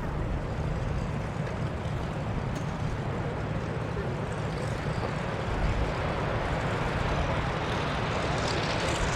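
AV-8B Harrier's jet engine running, a steady dense roar that builds slightly toward the end.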